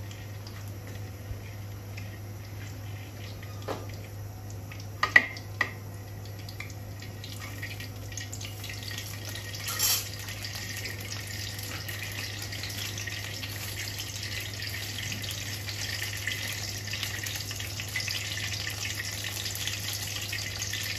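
Oil heating in a karahi over a gas flame with bay leaves in it, starting to sizzle: a soft hiss that builds steadily from about eight seconds in. A few light clicks come about four to six seconds in, and a brief louder hiss comes near ten seconds.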